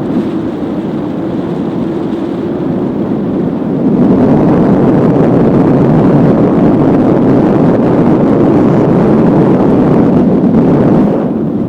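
Strong wind rushing over the microphone in paragliding flight, a loud steady rumble with no engine tone. It grows louder about four seconds in and eases slightly near the end.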